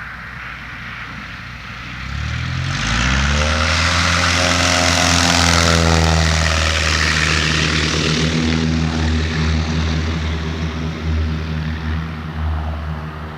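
Cessna Skyhawk's piston engine and propeller run up to full power about two seconds in, the pitch climbing, then holding steady and loud: the throttle opened for a takeoff.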